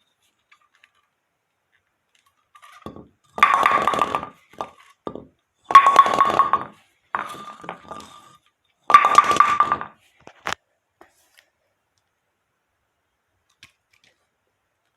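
AMF Amflite II bowling pins knocked and clattering, in three main bouts about a second each with smaller knocks between. Each bout rings with a clear hollow tone.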